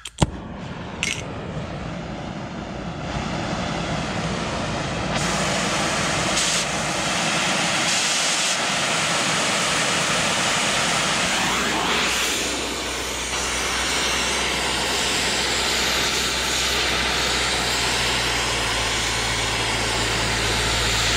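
Oxy-acetylene cutting torch with a number 0 tip, lit with a pop right at the start, then a steady, loud hiss of flame and cutting oxygen as it cuts steel plate. A low steady hum joins about two-thirds of the way through.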